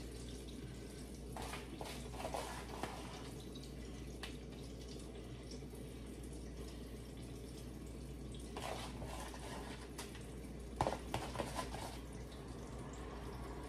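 Fish frying in hot oil: a steady sizzle with scattered crackles and a few short clicks.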